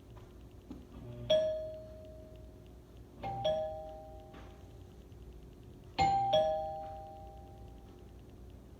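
Chime doorbell rung three times, a couple of seconds apart; each ring is a ding-dong, a higher note followed by a lower one that rings on and fades away.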